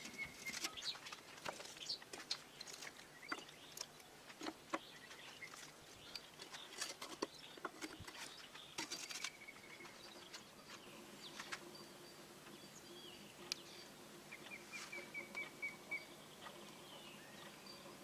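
Faint scattered clicks and snaps from a wood-fired samovar as freshly added wood settles and burns in its firebox, with birds chirping; a quick run of chirps comes about fifteen seconds in.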